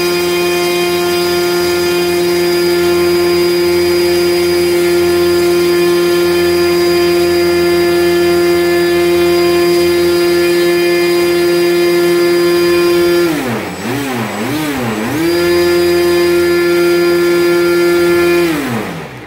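RC airplane's electric motor spinning its propeller under throttle, a steady whine while it draws current from the LiPo battery. About 13 seconds in the pitch drops and climbs back twice as the throttle is eased off and opened again, and near the end it winds down as the throttle is cut.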